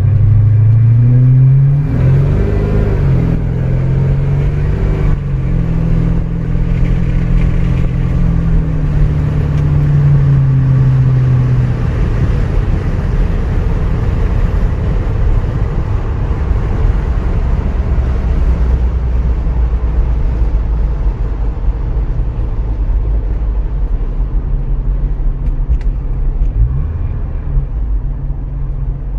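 Engine of a 1940s car running while it is driven. It revs up in the first few seconds, holds, and eases off about ten seconds in. It then runs low and steady with a rough rumble, picking up again near the end.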